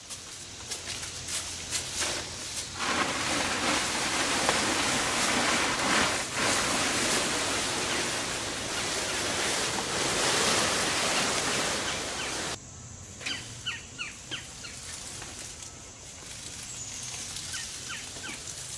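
A large plastic tarp rustling loudly as it is dragged off, cutting off suddenly about twelve seconds in. After that, a quieter outdoor background with a few short bird chirps.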